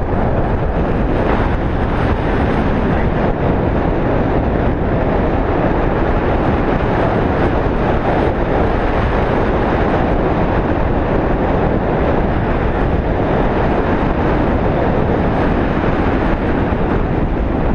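Steady, loud rush of wind over the microphone, with no break or change.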